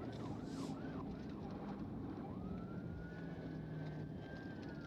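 Police car siren sounding over engine and road noise: a few quick up-and-down yelps in the first second, then a slower wail that rises, holds and starts to fall near the end.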